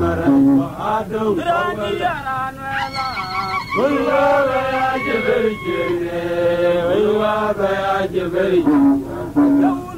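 A man singing a chant-like song, one voice holding long notes and sliding between pitches.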